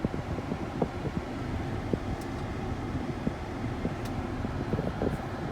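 Volvo XC90 cabin blower fan running steadily, with a rush of air and an irregular low rumble.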